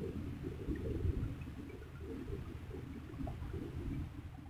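Low, uneven rumbling and rustling of handling noise close to the microphone, with a few faint ticks, as a small catfish is held and handled right in front of the camera.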